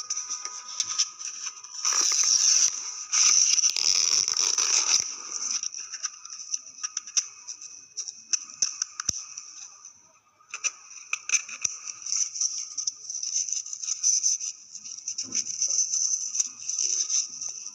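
Packaging and the watch being handled: rustling and scraping, loudest about two to five seconds in, with scattered small clicks and taps. Under it runs a steady high-pitched chirring that drops out briefly about ten seconds in.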